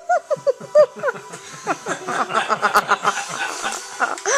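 Several people laughing in rapid, high-pitched bursts of short syllables that overlap most thickly in the middle.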